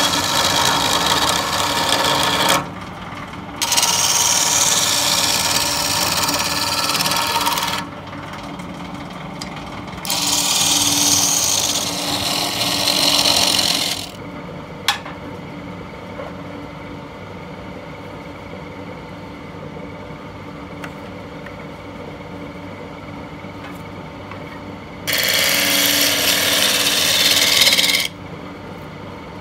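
Wood lathe spinning a large wooden bowl blank while a hand-held turning tool cuts across its face: four hissing, scraping cuts of a few seconds each. Between the cuts, and through a long stretch in the middle, only the lathe's steady hum is heard.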